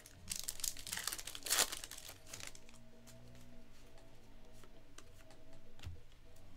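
Foil wrapper of a Panini Donruss basketball card pack being torn open and crinkled. The crinkling lasts about two seconds and is loudest about a second and a half in, then gives way to quieter handling.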